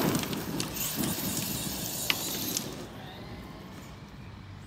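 Arrma Kraton electric RC truck driving fast over dirt and grass, its running mixed with scattered clicks and a sharp tick about two seconds in. The sound drops quieter a little before three seconds in.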